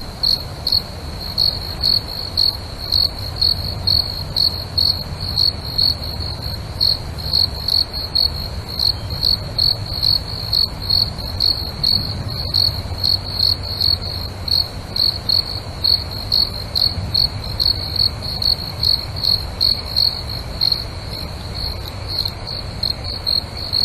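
Crickets chirping at night: a steady, regular train of short, high chirps, about two a second, over a low steady rumble.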